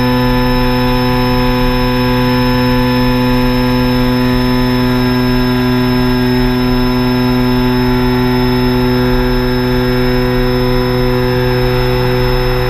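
Quadcopter drone's motors and propellers holding a steady, even-pitched hum and whir, heard close up from the drone's own camera.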